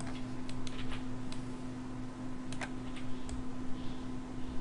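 Scattered clicks of a computer mouse and keyboard at uneven intervals, a few close together about a second in and again around two and a half seconds, over a steady low electrical hum.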